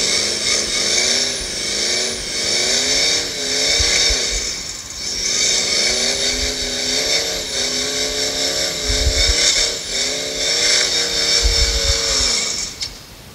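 Supercharged Ford 302 V8 revving up and down again and again, then stopping near the end.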